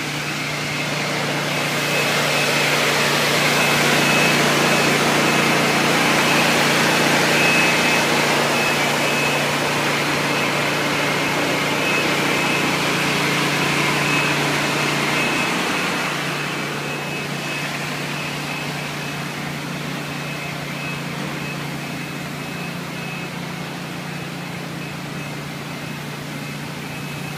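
Walk-behind floor scrubber running over a wet, freshly saw-cut concrete slab, picking up the cutting slurry. A steady motor hum and a high whine grow louder as it passes close, then ease off after about 16 seconds.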